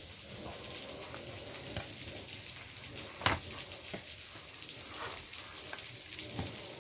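Fried fish fillets being handled on paper and a metal plate, making light rustles and scattered clicks over a steady hiss, with one sharp click about three seconds in.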